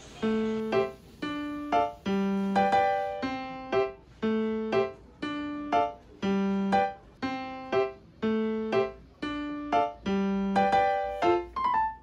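Background music: a light keyboard melody of short, quickly fading notes, about two a second in a steady rhythm.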